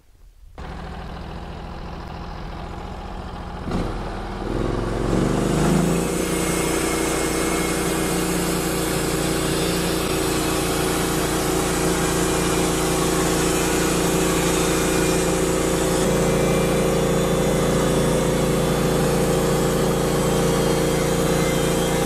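Norwood LumberMax HD38 portable band sawmill's engine running slowly, then revving up with a rising pitch about four to six seconds in as the band blade comes up to speed. It then runs steadily at full speed while the blade saws a thin skim cut along the top of a black oak cant.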